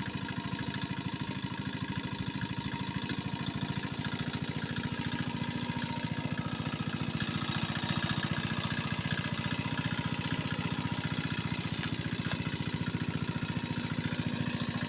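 A small engine running steadily at an even speed, its fast, regular firing heard as a continuous chugging.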